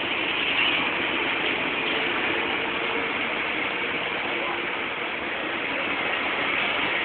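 Heavy demolition machinery working on a building: a steady mechanical rattling and grinding with a faint engine hum underneath.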